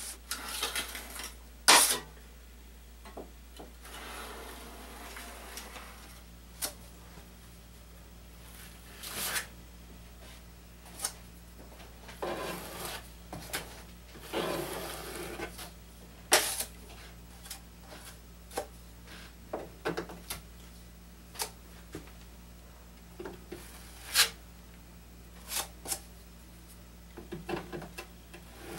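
Steel drywall knife scraping joint compound over metal corner bead, in short strokes with sharp clicks where the blade knocks against the bead or the mud pan, the loudest about two seconds in. A steady low hum runs underneath.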